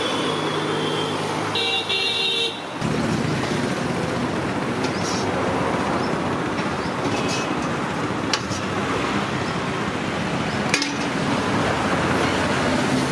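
Steady road traffic noise, with a vehicle horn honking for about a second, roughly two seconds in, and a few sharp clicks later on.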